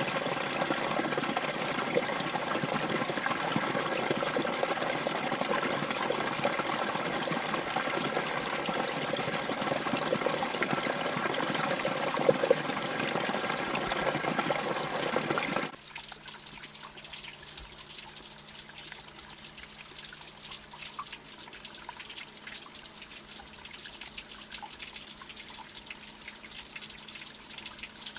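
Running water, a loud steady rush that cuts off about halfway to a much quieter trickle.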